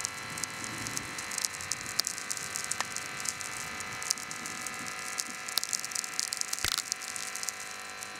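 A soundscape of dense, irregular crackling clicks over a steady drone of many held tones, with one sharper click near the end.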